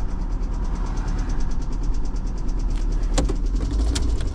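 Toyota SUV engine running at a high fast idle just after starting, with a rapid, even knocking over the rumble: the engine has rod knock. Two sharp clicks come about three and four seconds in.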